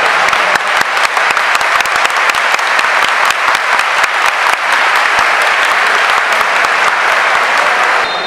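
Large stadium crowd applauding, with many sharp hand claps close by. Right at the end the clapping eases and a referee's whistle starts, a steady high tone.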